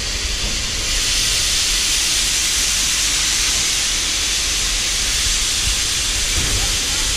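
Small steam locomotive venting steam with a loud, steady hiss that grows louder about a second in, over a low rumble.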